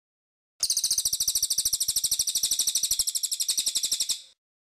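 Cililin (crested jay) giving a fast, high-pitched rattling call of about eleven even pulses a second. It lasts about three and a half seconds and stops abruptly.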